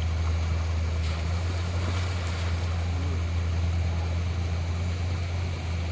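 A small engine running steadily with an even low drone.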